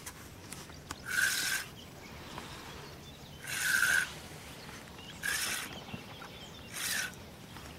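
Fishing reel being wound in four short bursts of reeling, bringing in line on a hooked grass carp played at the surface.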